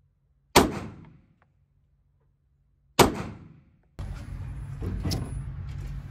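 Two single pistol shots from a 9mm Glock 19X, about two and a half seconds apart, each followed by a short echoing decay. About four seconds in, the sound cuts abruptly to a steady low rumble.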